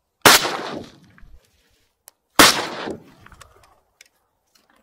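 Two shots from an MP-155 semi-automatic shotgun, about two seconds apart, fired at a drake. Each shot ends in a short echoing tail, and faint clicks follow.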